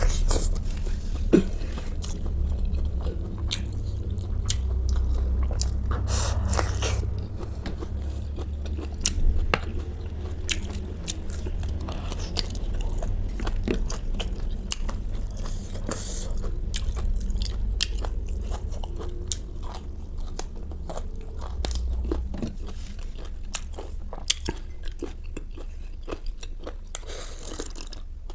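A person chewing and biting food close to the microphone, with frequent short crunches and clicks.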